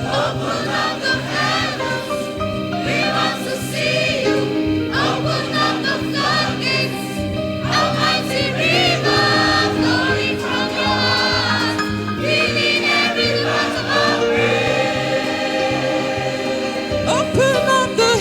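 Choir singing a gospel worship song, with voices sliding and wavering in pitch over a steady low accompaniment.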